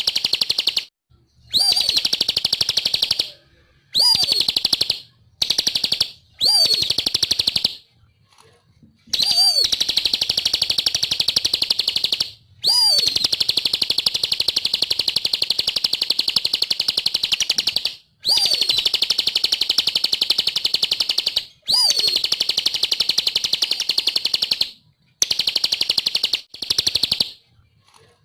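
Ciblek (bar-winged prinia) singing: long, very fast high-pitched trills, each phrase opening with a short up-and-down note, repeated with brief pauses between phrases; one phrase runs unbroken for about five seconds.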